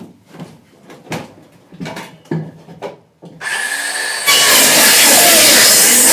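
Knocks and clatter of a board and tool being handled, then a handheld electric circular saw spins up with a rising whine about three seconds in. About a second later it cuts into a wooden board, loud and steady.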